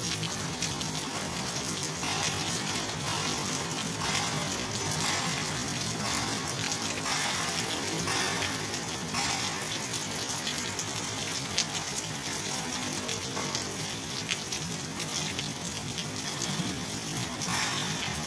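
Steady rain falling, a dense, even patter of many drops.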